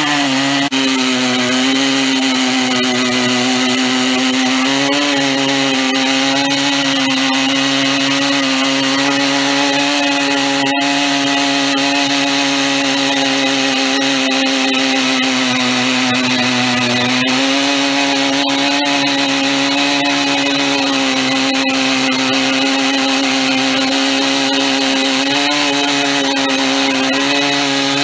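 Stihl MS 880 two-stroke chainsaw with a long 105 cm bar, mounted in a chainsaw mill and ripping lengthwise through an oak log. The engine holds steady high revs under load, its pitch wavering slightly a few times as the cut loads it.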